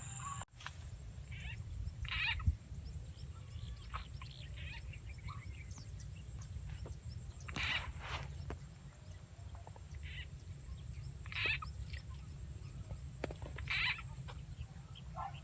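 Frog calls from a looped frog-call sound effect played to lure frogs: short calls repeating every few seconds over a steady low rumble and a thin high hiss.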